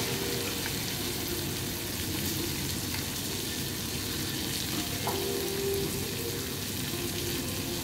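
Wagyu beef steaks sizzling steadily on a hot teppanyaki griddle.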